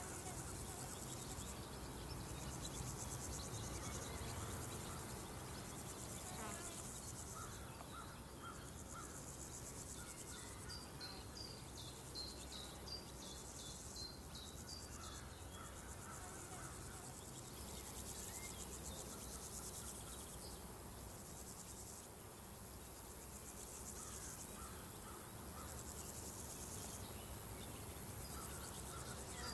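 A chorus of insects chirring in waves, with scattered bird chirps. A louder, higher-pitched layer of insect sound comes in a little past the middle and stops shortly before the end.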